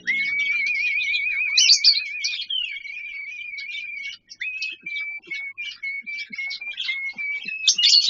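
Cockatiel whistling a long, wavering note that settles into a steadier whistle with small steps in pitch, over many short bird chirps.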